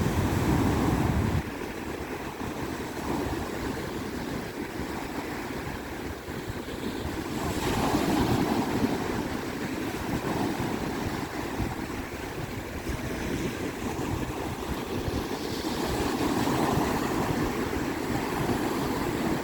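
Sea waves breaking and washing up a sandy beach, swelling loudest about 8 seconds in and again near the end. Wind buffets the microphone for the first second or so.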